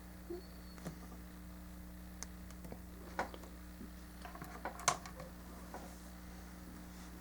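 Small plastic model-kit parts, Gunpla arm pieces and a poly cap, clicking and tapping as they are handled and fitted together: a scattering of light irregular clicks, the sharpest about five seconds in.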